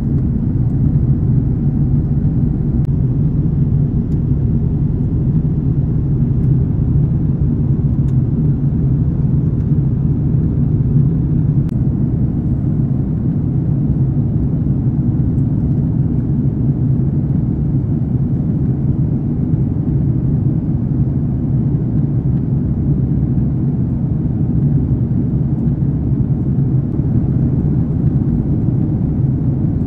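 Steady low rumble of an Airbus A330-900neo in flight, heard from inside the economy cabin: its Rolls-Royce Trent 7000 engines and airflow, even in level with a faint low hum in it, shortly after takeoff.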